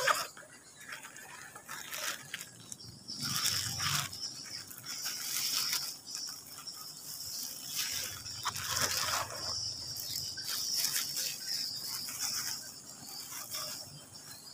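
Leaves, palm fronds and branches rustling and scraping at close range as someone moves through them, in irregular bursts. Under it runs a steady high-pitched insect drone that drops out now and then.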